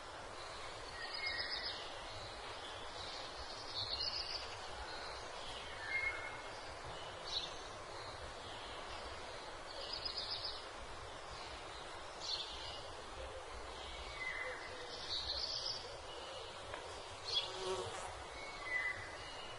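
Faint short high chirps from small animals, repeating every second or two over a steady hiss.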